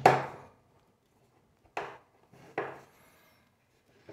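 Three sharp knocks of metal on a wooden tabletop as a screwdriver and a steel oven door are handled during disassembly. The first, at the start, is the loudest; two lighter knocks follow about two and three seconds in.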